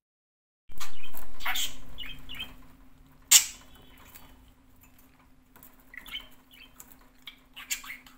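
Budgerigar chirping in short bursts while pecking at a seed stick, with a sharp click about three seconds in. A steady low hum runs underneath.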